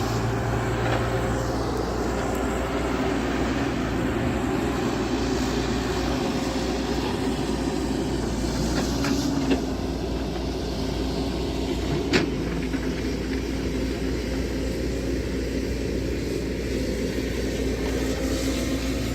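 An engine running steadily with a constant drone, and two sharp knocks about halfway through and a few seconds later.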